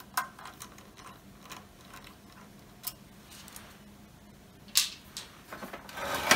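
Scattered light clicks and taps of hands handling a wire harness and a screwdriver against a desktop computer's metal drive cage, busier with rustling near the end.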